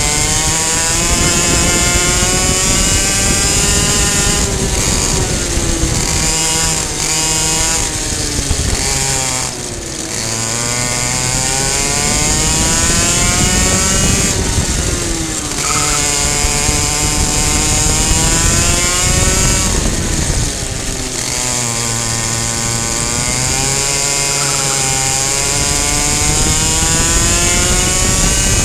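Two-stroke racing kart engine heard onboard at high revs, screaming on the straights and falling in pitch several times as it comes off the throttle for corners, then climbing again. A steady hiss sits over the engine.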